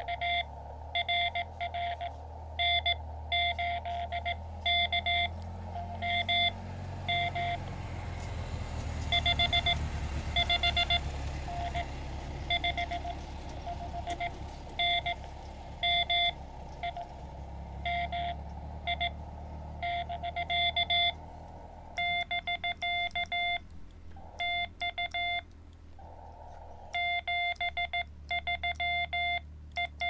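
Morse code (CW) beeping from a Xiegu X-6100 transceiver's speaker: a single steady mid-pitched tone keyed in dots and dashes over a narrow band of receiver hiss. About two-thirds of the way through, the hiss cuts out between characters and the keying turns even and crisp, which fits the radio's sidetone while the operator sends.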